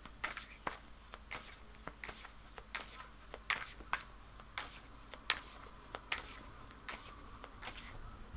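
A tarot deck being shuffled by hand overhand, packets of cards slapping and sliding together in quiet, irregular taps about two or three a second.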